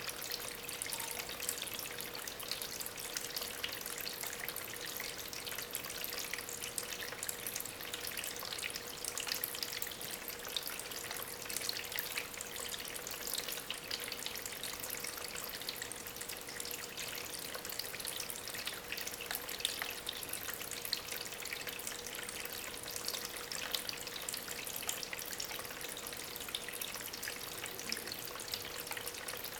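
Water trickling and splashing steadily over stones in a small homemade waterfall circulated by an aquarium pump, with a faint steady hum underneath.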